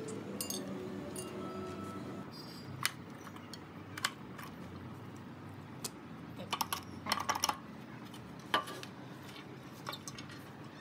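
Metal parts of a three-wheeler's rear brake and hub assembly clinking and knocking as they are handled, with scattered single clinks and a quick run of them around the middle.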